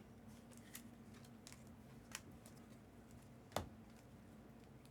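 Near silence with a few faint clicks and taps from trading cards being handled and flipped, the sharpest click about three and a half seconds in.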